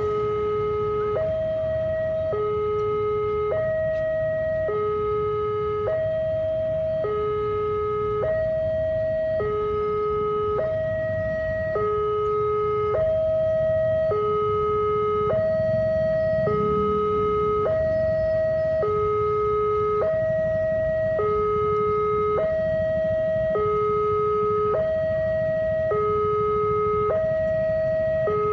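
Railway level-crossing warning alarm sounding its two-tone signal, a low tone and a higher tone alternating about once a second, steady and unbroken: the barriers are down for an approaching train. A low rumble of waiting traffic runs underneath.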